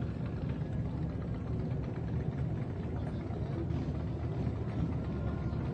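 Motorcycle engines running in the street, a steady low engine sound with no sharp revs or breaks.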